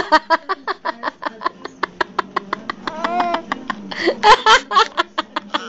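Baby laughing: a run of quick breathy giggles, about seven a second, broken by a short squeal about three seconds in and louder voiced bursts of laughter about four seconds in.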